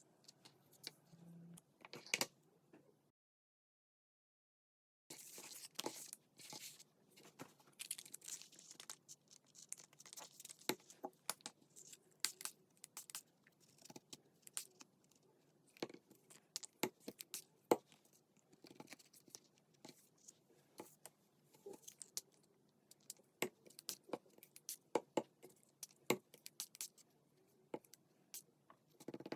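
Close-up paper-crafting handling: paper and cardstock being torn, scraped and rustled, with many small taps and clicks. It drops out to complete silence for about two seconds near the start.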